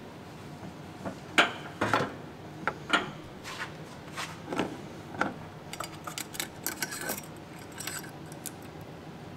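Metal parts clinking and knocking as a turbocharger and a V-band clamp are handled and fitted to the exhaust, in scattered single knocks at first, then a quick run of light clicks about six to seven seconds in.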